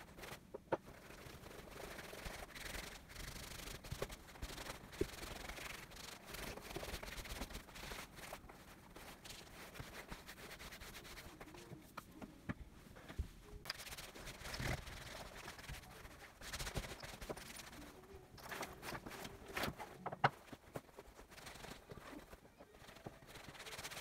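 Bare hands rubbing beeswax-oil leather conditioner into a leather jacket: uneven swishing of skin on leather, with scattered light knocks and taps as the jacket is handled.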